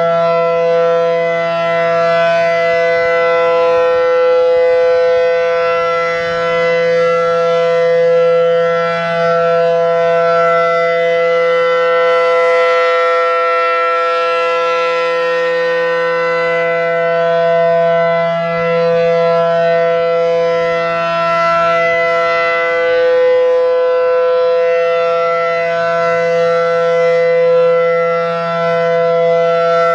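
ACA Allertor electronic outdoor warning siren sounding its alert signal: one loud, steady tone rich in overtones that holds its pitch throughout. The loudness swells and dips gently every few seconds.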